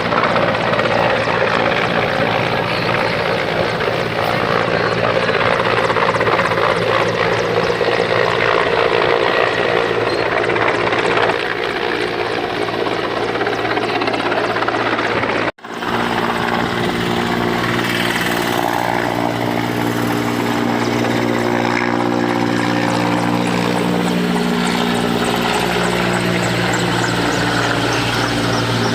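Helicopter running steadily at close range, the rotor and engine sound continuous, with a sudden brief cut about halfway through, after which a steady low drone is more pronounced.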